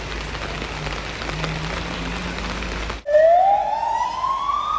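Steady hiss of heavy rain. About three seconds in, an emergency vehicle's wailing siren starts and rises slowly in pitch.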